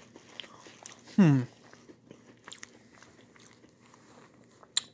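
A person chewing a Red Bird candy with faint, irregular small crunches and mouth clicks. About a second in there is a short 'mm' with a falling pitch, and near the end there is one sharp click.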